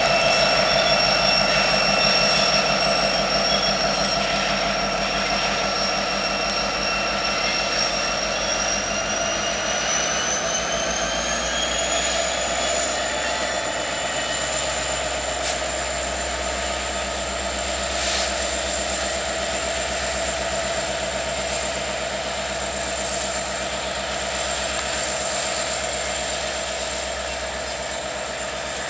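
Union Pacific diesel locomotive moving slowly past with a train of covered hoppers: a steady mechanical drone with a high whine that climbs in pitch about halfway through, over a low engine rumble.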